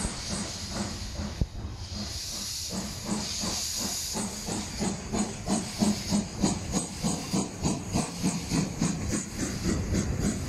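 Steam locomotive pulling away: a steady hiss of steam, then exhaust chuffs that settle into an even beat of about three a second. A single sharp knock sounds about a second and a half in.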